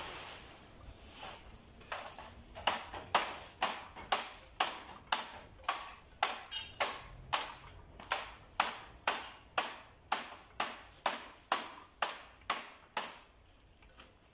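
Dry leaves being swept on a paved path with a broom: brisk, even strokes about two a second, starting about two and a half seconds in and stopping shortly before the end, with lighter rustling before the strokes begin.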